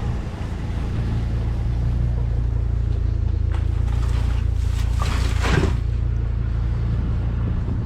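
Vehicle engine running steadily, a low drone, with a brief rushing noise about five seconds in.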